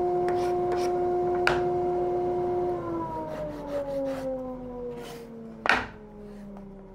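Table saw motor and blade running at speed with a steady whine, switched off about three seconds in and coasting down, the whine falling steadily in pitch. Over it come short scraping strokes of a carbide hand sanding block on the board's cut edge, and one sharp knock a little before the end.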